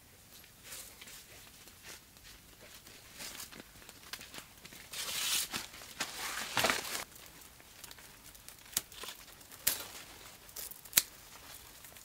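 Leaves and vines rustling and crinkling as they are handled in a melon patch, loudest about halfway through, with a few sharp clicks in the second half.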